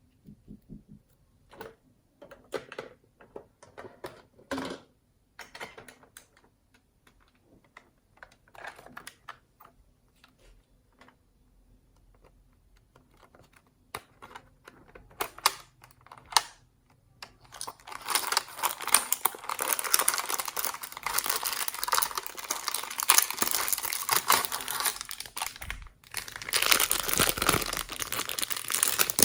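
Slime being squished and stretched by hand, giving scattered sticky clicks and pops, then from about eighteen seconds in a dense, continuous crackling.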